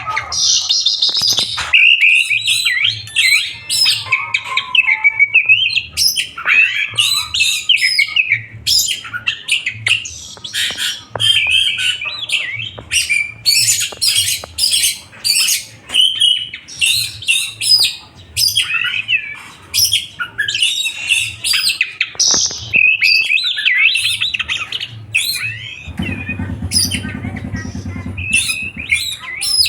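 A songbird singing a long, rapid, chattering song of sharp, high notes and trills, with a faint pulsing low hum underneath and a brief low buzz near the end.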